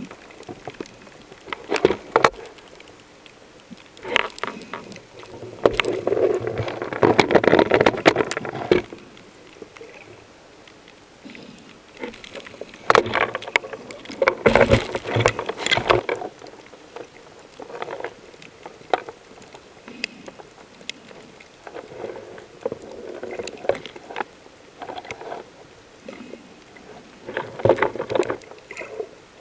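Water noise picked up by an underwater camera: irregular gurgling, bubbling bursts every few seconds, the longest lasting about three seconds, with scattered sharp clicks.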